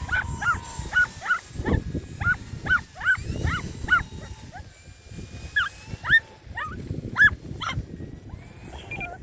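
A small yappy dog barking: a rapid string of short, high yaps, two or three a second, pausing briefly about halfway through before starting again.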